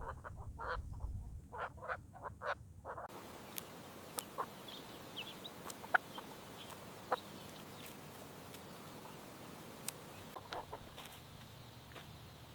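Chickens clucking in a quick run of short calls, with a low rumble under them. About three seconds in it cuts to quieter ambience with only a few faint clucks and scattered clicks.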